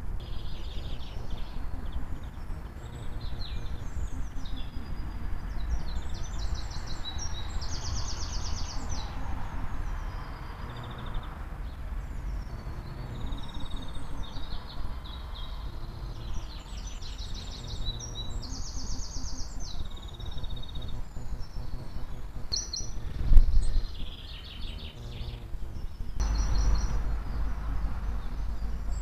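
Several small birds singing in a dawn chorus, with many short trills and rapidly repeated high notes, over a steady low rumble. A single loud knock comes about three quarters of the way through.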